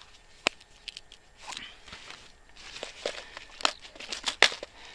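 Hands handling a clear plastic Caperlan tackle box: a few sharp hard-plastic clicks and knocks, the loudest near the end as the box's latches are worked open, with soft rustling between them.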